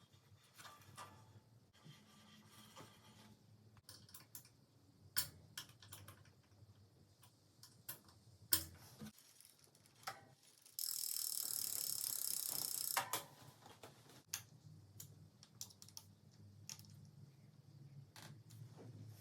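Scattered clicks and ratchet-like ticks of bicycle parts and tools being handled during assembly. About halfway through comes a loud, steady hiss lasting about two seconds.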